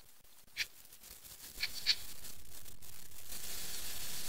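Faint scratching of handwriting strokes, a few short ones, over a low hiss that sets in about a second and a half in.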